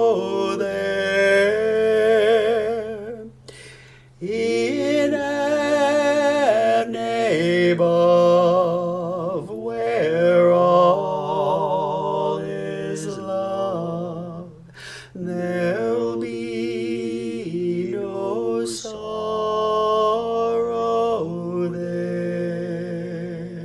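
Slow, unmetered a cappella hymn singing in several overdubbed male voice parts by one singer, in close harmony, with vibrato on long held notes. There are brief pauses for breath between phrases, about 4 s and 15 s in.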